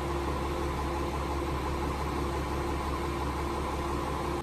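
Diesel railcar's engine idling while the train stands still, heard from inside the passenger car: a steady low hum.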